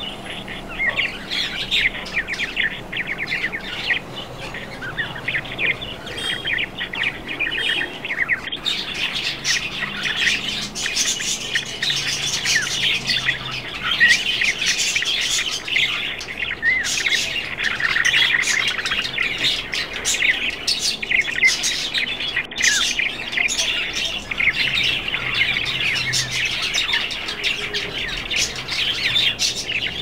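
A flock of budgerigars chattering and warbling without pause: a dense stream of quick, overlapping chirps that gets fuller and busier about eight seconds in.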